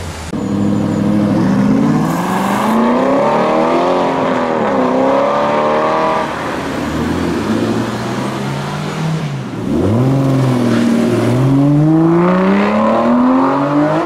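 Two sports cars accelerating hard away, one after the other. Each engine's note climbs steadily through the revs and drops briefly at each upshift. The second, an Aston Martin Vantage, is loudest near the end.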